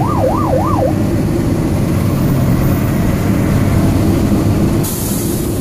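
Fire engine siren in a fast yelp, heard from inside the cab, cutting off about a second in. The truck's engine and road rumble carry on steadily, and a sudden hiss starts near the end.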